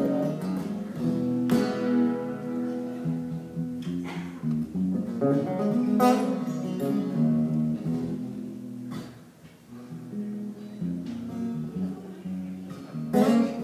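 Solo acoustic guitar playing chords, a few strong strums letting the chords ring, with picked notes between; it drops quieter for a moment about nine seconds in.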